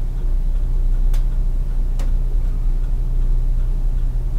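Two sharp ticks about a second apart as a pencil point touches down against the edge of a plastic drafting template on paper, over a steady low hum.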